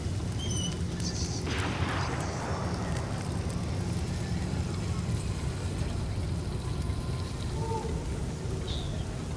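Sci-fi desert town ambience: a steady low rumble with a few short high electronic chirps, and a hissing burst about a second and a half in that fades away over a second.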